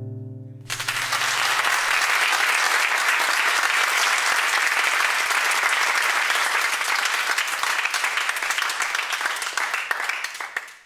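The final acoustic guitar chord rings for under a second, then an audience claps steadily; the applause fades away near the end.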